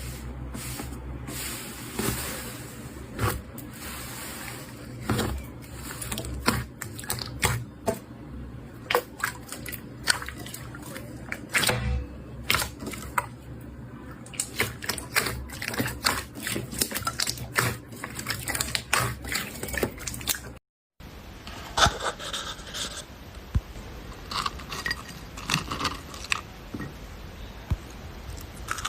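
Foam slime being pressed and stretched by hand, giving many quick, uneven crackles and clicks. The sound breaks off for a moment about 21 seconds in, then carries on over a different, quieter background.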